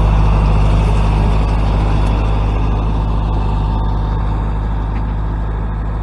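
Tractor engine running steadily at a constant pitch, slowly getting quieter.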